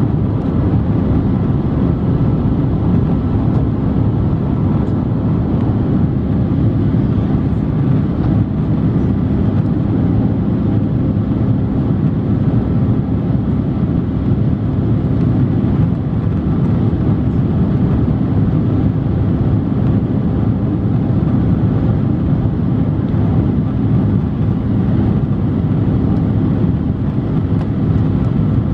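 Airbus A330-300 jet engines and rushing airflow heard from inside the cabin during the climb after takeoff: a loud, steady low rumble with a faint even hum in it.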